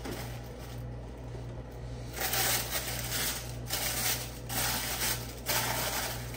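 Packaging being rustled and crinkled by hand as a gift box is unwrapped, in several short bursts starting about two seconds in, over a steady low hum.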